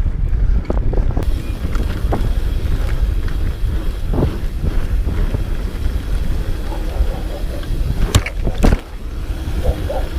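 Enduro motorcycle running off-road with heavy wind rumble on the microphone, and two sharp knocks about eight seconds in.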